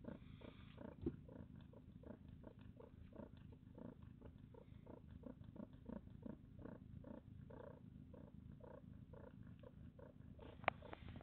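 Mother cat panting quickly and faintly with her mouth open, about three breaths a second, as is normal for a queen during and after giving birth. A single sharp click sounds near the end.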